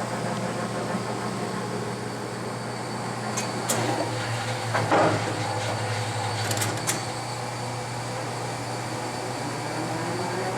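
A 1978 LeBlond Regal Servo-Shift geared-head lathe running with a steady hum. A few clicks and a brief surge come about midway as the servo-shift changes the headstock speed, then a rising whine near the end as the spindle speeds up.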